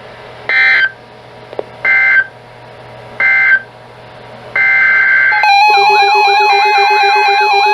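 Emergency Alert System end-of-message code: three short warbling digital data bursts about a second and a half apart, marking the end of the warning. A longer burst follows, then about five and a half seconds in a loud electronic alert sound starts, with repeating pulsing and sweeping tones.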